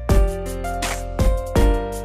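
Background music: pitched instrumental notes over a steady beat of drum hits.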